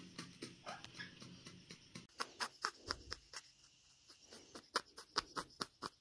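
A Pionus parrot wheezing: a rapid run of short, breathy huff-puffing pulses, about four a second, growing louder about two seconds in. This wheeze is a normal Pionus trait, made when the bird is very happy or nervous, and not a sign of respiratory illness.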